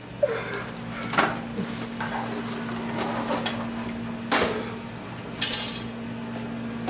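About five sharp knocks and clatters, spaced a second or so apart, over a steady low hum.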